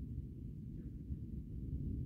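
Thunderstorm rumble: a low, uneven rumbling noise with nothing higher-pitched over it.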